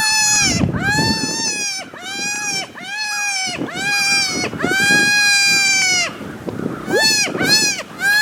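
Rabbit-distress wails blown on a mouth-held diaphragm predator call, a loud series of drawn-out, bleating cries, each rising and falling. Near the end they come as quicker, shorter cries. The calling is meant to draw in a bobcat or coyote.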